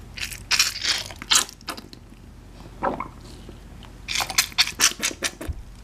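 Squirting rubber duck toy squeezed over a bath, sputtering out water and air in two bouts of quick spurts.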